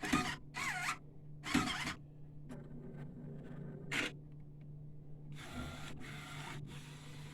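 Freshly powered 1390 UV printer humming steadily while its mechanism runs through start-up. A few short rasping strokes and a click come first, then a run of even rasping strokes about two thirds of a second apart.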